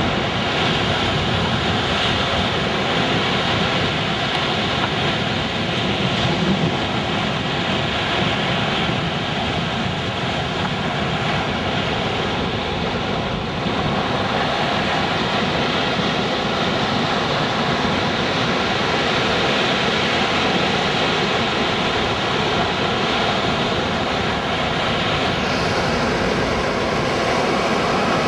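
Wind buffeting the microphone over waves breaking on the beach, a loud, steady rushing noise.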